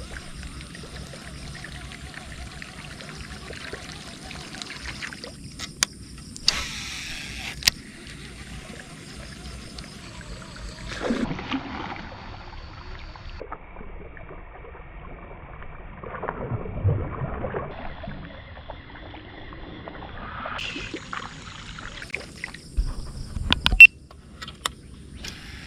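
Water splashing and sloshing in several bursts over a steady high insect drone, with a few sharp knocks near the end.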